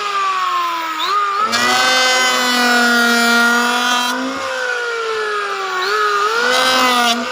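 Hand-held electric power tool with its motor whining, slowing down and then speeding up again twice, and cutting into wood in two passes, a long one about 1.5 seconds in and a short one near the end.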